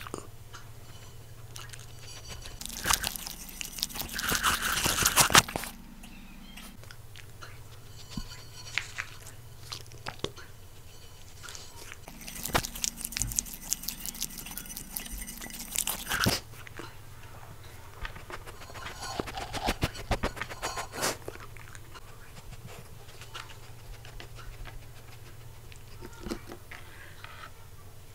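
West Highland white terrier crunching and chewing food off a plate right beside a clip-on microphone, in three bursts of a few seconds each with pauses between.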